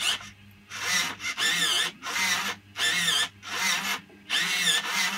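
Blue micro servos driving a 3D-printed droid arm back and forth: a series of short whirring gear-motor buzzes, each half a second to a second long, with a wavering whine. A faint steady hum runs underneath.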